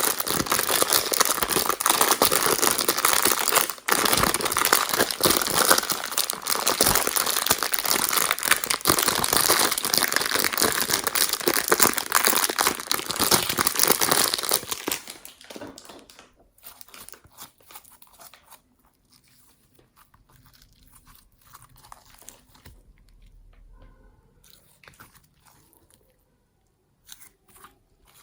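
Slime being squeezed and worked by hand, giving a dense crackling crunch for about fifteen seconds. It then drops to quiet, scattered sticky clicks and pops.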